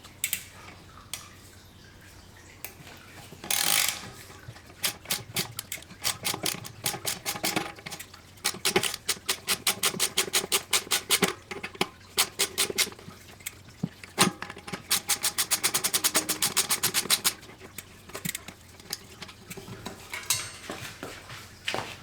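Rapid runs of metallic clicking, several clicks a second, with a few knocks in between, as the rear cassette is worked off the bike's freehub.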